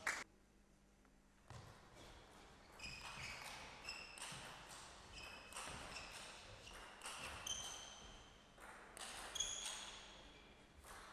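Table tennis ball clicking back and forth off the bats and the table in a rally, many bounces ringing briefly with a high ping, in a large hall. It starts after a short near-silent gap near the beginning.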